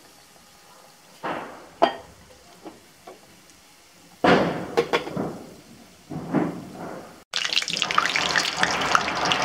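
Moong dal kachoris deep-frying in hot ghee in a kadhai on low heat: a faint sizzle with a few sharp clicks, then bursts of crackling sizzle from about four seconds in. After about seven seconds it turns into a loud, dense crackling sizzle.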